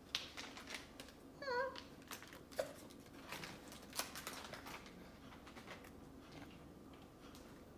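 Faint sticky clicks and small pops of slime being squeezed and pulled apart by hand, with a brief high-pitched vocal squeak about a second and a half in.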